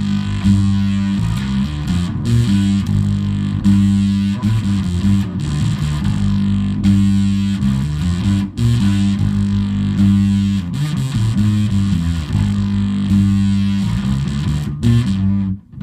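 Teisco bass played through a custom octave-up fuzz pedal with its blend knob at halfway, so the clean low end sits under the distorted octave-up fuzz, into a Fender Bassman 60 amp. A run of changing notes, with a short break near the end.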